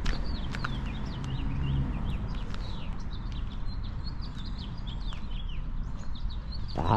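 Small birds chirping and twittering, many short overlapping calls, over a low steady background rumble.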